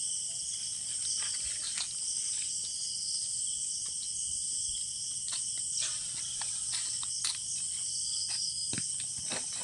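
Steady chorus of crickets shrilling at night, with irregular crunches of footsteps on dry leaf litter.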